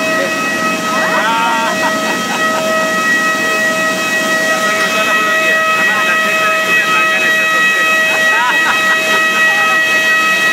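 Steady high-pitched turbine whine over a loud hiss from a parked jet airliner, with a few faint voices.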